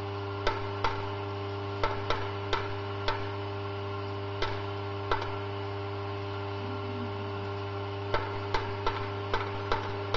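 Stainless steel vibratory bowl feeder running with a steady low hum, while small white plastic parts tick and click against the steel bowl and track at irregular intervals. The clicks thin out in the middle and come in a quicker run near the end.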